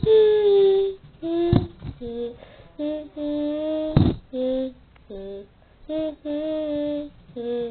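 A voice singing a slow tune in short held notes with pauses between them, with a sharp knock about four seconds in.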